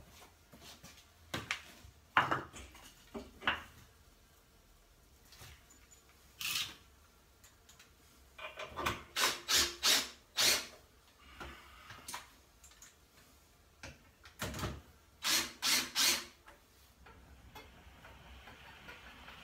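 Hard knocks and clunks of wooden blocks against a stainless-steel honey extractor and its legs as the extractor is raised onto wooden feet. The knocks come in a few scattered strikes, then two quick clusters of loud bangs, some with a brief ring from the steel drum.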